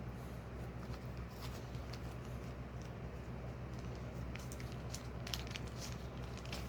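Light clicks and taps from small pyrography kit parts, such as burner tips and their plastic case, being handled, more frequent in the second half, over a steady low hum.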